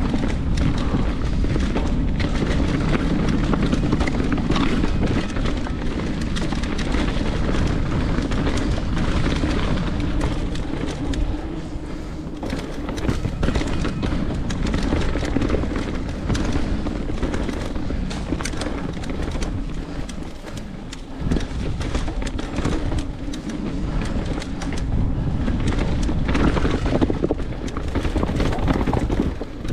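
Santa Cruz Nomad mountain bike descending a rocky dirt trail, heard through an action camera's microphone: wind buffeting the mic and tyres rumbling over dirt and rock, with frequent knocks and rattles from the bike as it hits rocks.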